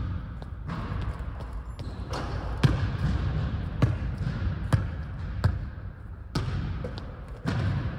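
Basketballs bouncing on a hardwood gym floor, about seven sharp bounces at uneven spacing, each echoing briefly in the large hall over a steady background noise.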